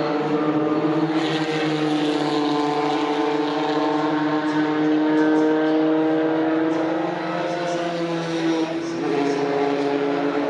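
Vintage Formula 3 racing car engines running at high revs past the trackside. The engine note sags slowly in pitch and shifts around eight to nine seconds in.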